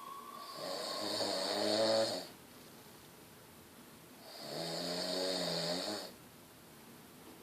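A man snoring asleep: two long snores about four seconds apart, the first growing louder until it cuts off.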